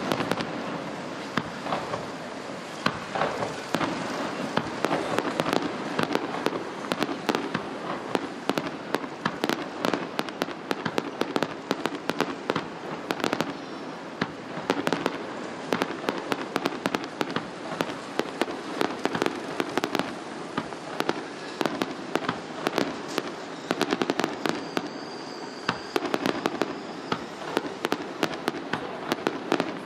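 Aerial fireworks going off: a dense, rapid run of bangs and crackles from shells launching and bursting, with no real pause.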